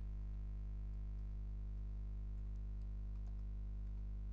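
A steady low electrical hum on the recording, with a few faint computer keyboard key clicks a little past halfway through.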